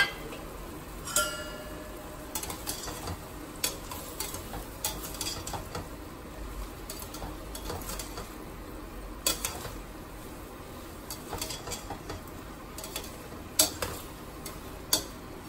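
Perforated steel ladle stirring chopped tomatoes, soya chunks and potato in a stainless steel pot, scraping and clinking against the pot's sides, with one ringing clang about a second in. A low sizzle of the frying mix underneath.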